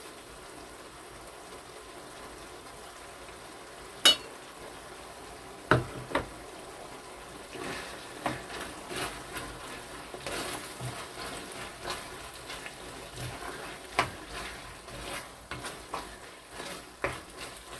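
Black bean paste and vegetables sizzling faintly in a frying pan on a portable gas stove. Two sharp knocks of a spoon on the pans come about 4 and 6 seconds in, and from about halfway a wooden spoon stirs and scrapes the pan in quick, irregular strokes.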